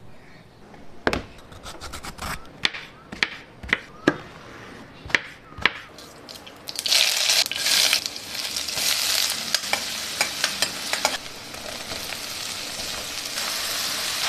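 Mustard seeds popping in hot mustard oil in a steel wok: about ten separate sharp pops. Then, about seven seconds in, a loud sizzle sets in as garlic, green chillies and onion hit the oil. A few more pops come through the sizzle, and it goes on steadily as the frying continues.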